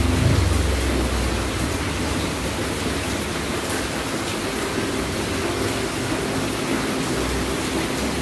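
A steady, even rushing hiss with no distinct events in it.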